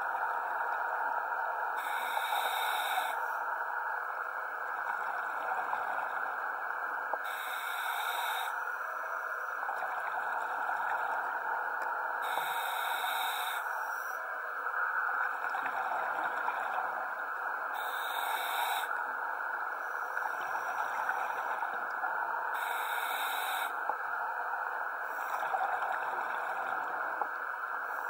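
Scuba diver breathing through a regulator, heard underwater: a short hiss of about a second roughly every five seconds over a steady underwater rush.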